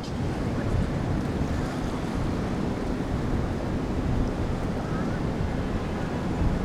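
Wind buffeting the microphone over open water: a steady low rumbling rush.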